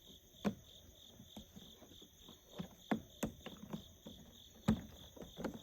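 Crickets chirping in a steady pulsing trill, with scattered sharp clicks and knocks from hands working at the casing of a Predator 2500 inverter generator while looking for its oil access panel.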